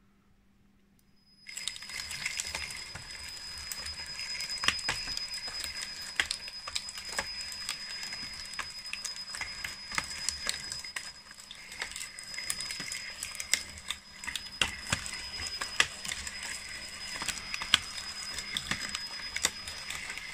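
RC bulldozer model's electric drive running its 3D-printed plastic track chain: a steady high motor whine with rapid, irregular clicking of the track links over the sprocket and idlers, starting suddenly about a second and a half in.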